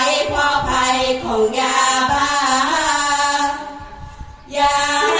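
A Thai sarabhanya troupe of women chanting verse together in unison, unaccompanied, in long held, gliding notes; the voices drop away briefly about four seconds in, then the next line begins.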